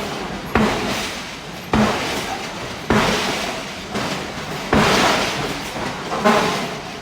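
Giant hydraulic forging hammer striking steel: five heavy blows, roughly one every one and a half seconds, each followed by a ringing decay.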